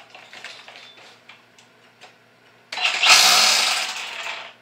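Light handling clicks, then about three seconds in a BLACK+DECKER 20V MAX cordless string trimmer's motor is triggered and runs loudly for under two seconds before fading as it spins down.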